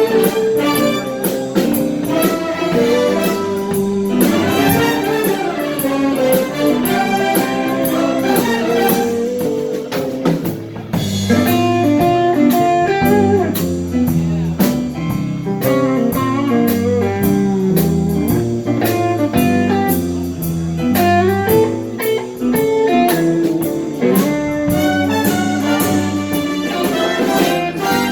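Music: a band playing an upbeat tune with guitar and a steady drum beat.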